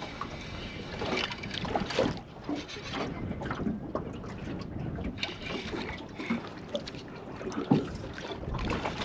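Wind buffeting the microphone over water sounds, with scattered irregular knocks and rustles of handling.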